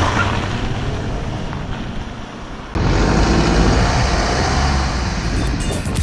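Volvo V90 estate driving along a gravel lane, with tyre crunch and engine noise. About three seconds in, the sound jumps suddenly to louder, steady tyre, road and engine rumble heard close to a front wheel on a paved road.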